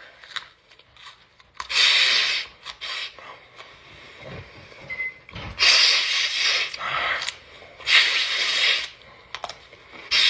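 A woman sniffing hard through her nose right at the microphone, four long sniffs a couple of seconds apart, with quieter chewing of raw broccoli between them.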